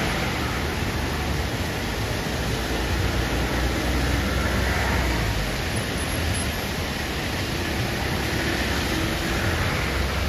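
Steady rush of muddy floodwater pouring down over landslide rubble and boulders, a continuous even noise that does not let up.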